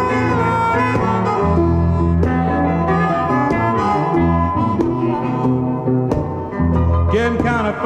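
Music played back from a vinyl LP in mono: an instrumental passage of a song, with a steady bass line under a wind-instrument lead, with no singing.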